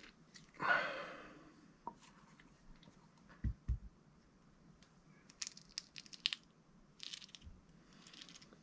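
Small handling noises from refilling an RC car's differential with silicone oil: a brief rasping crinkle about a second in, two dull knocks in the middle, then a quick run of small sharp clicks and short rustles.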